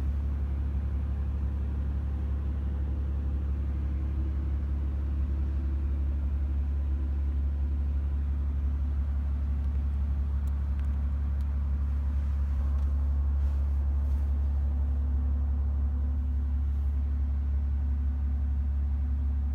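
Mercedes-AMG G65's twin-turbo V12 idling, a steady low hum heard from inside the cabin.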